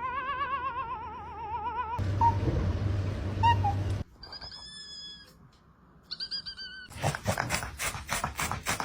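A domestic cat yowling in a long, wavering cry. After a cut come a noisy stretch with a few short chirps and then short high thin cries. Near the end comes a rapid pulsing noise at about four a second.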